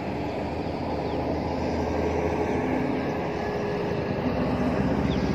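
Heavy truck engine running as it drives along the road across the canal: a steady low hum, growing gradually louder.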